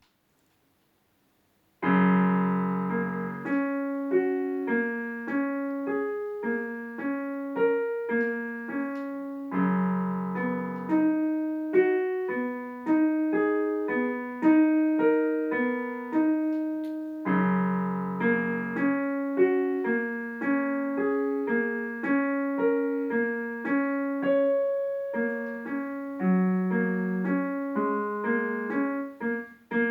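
Piano playing a flowing piece of quick, repeating broken-chord figures, starting about two seconds in. A low chord opens each phrase, about every eight seconds.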